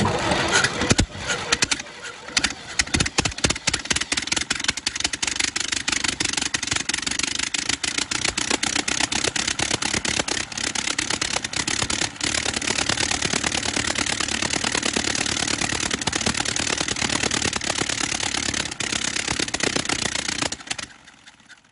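Reproduction 1903 Wright Flyer four-cylinder engine starting up with ragged, uneven firing, then settling after a few seconds into fast, steady firing. It cuts off suddenly near the end.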